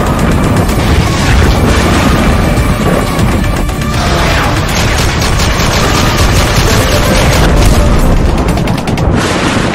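Dramatic intro sound design: loud music laid over booms and rapid bursts of gunfire sound effects, the shots coming thick and fast in the second half.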